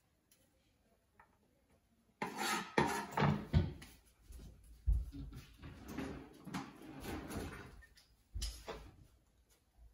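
Kitchen clatter of utensils being rummaged through and a drawer being handled, starting about two seconds in, with several dull knocks among the rattling.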